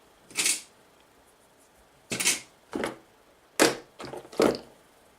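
Small parts and hand tools being handled on a workbench: about six short scraping clicks, one near the start and a cluster in the second half.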